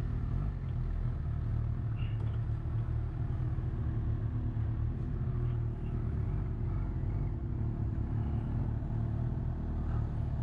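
Honda CB1000R's inline-four engine running steadily at low revs, a low even engine hum, as the motorcycle pulls away slowly.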